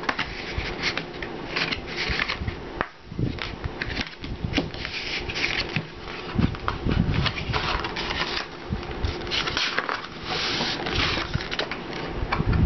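A sheet of thin card rustling and scraping as it is handled, folded and pressed flat along a crease, in irregular rubs and brushes.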